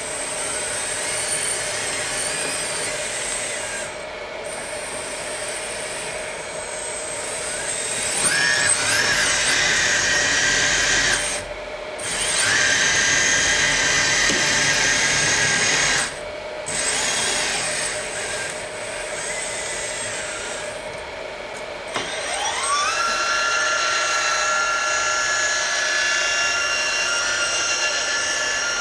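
The RC hydraulic excavator's electric hydraulic pump whines steadily. It speeds up with a rising pitch about eight seconds in and again near the end, and cuts out briefly twice in between.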